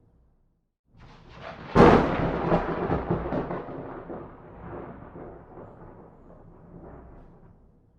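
A thunderclap. After a second of silence a rumble builds, breaks into a sharp crack, then rolls on and fades away over several seconds, cutting out just before the end.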